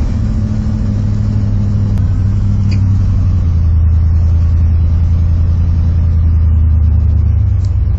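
Old Ford F-250 dually truck's engine running while driving, a steady low drone with road noise heard from inside the cab.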